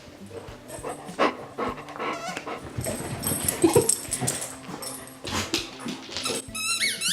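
Dog sounds with scattered short knocks and clicks; from about six and a half seconds a run of high, wavering squeaks begins.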